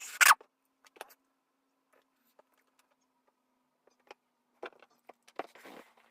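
Jigsaw puzzle pieces being handled: a loud short clatter at the start, then scattered small clicks and taps, and a brief rustle near the end.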